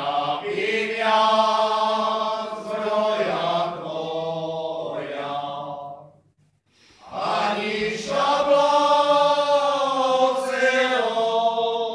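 Slovak male folk singing group singing a cappella: long drawn-out sung phrases, breaking off briefly about six seconds in before the next phrase begins.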